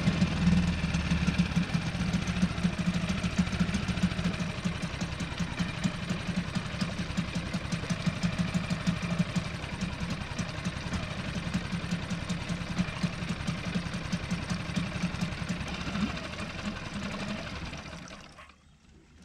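Nissan Marine four-stroke outboard motor idling steadily just after starting, left running to warm up; the sound stops near the end.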